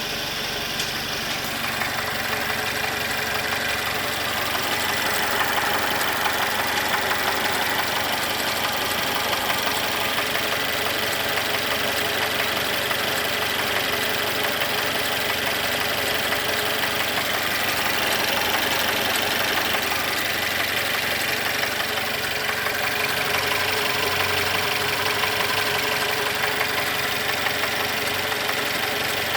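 Mercedes-Benz M274 turbocharged four-cylinder petrol engine idling steadily with a knock, which the mechanic takes for a connecting-rod knock.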